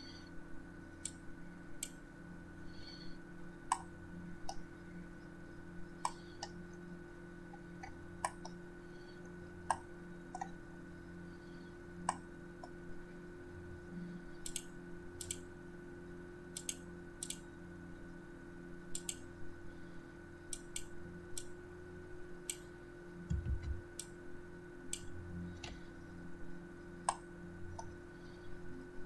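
Scattered sharp clicks at irregular intervals, coming more often in the middle of the stretch, from working a drawing program at a computer, over a steady hum.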